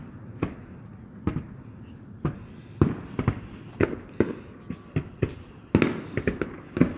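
Fireworks: aerial shells bursting in a string of sharp bangs at irregular spacing, coming faster near the end.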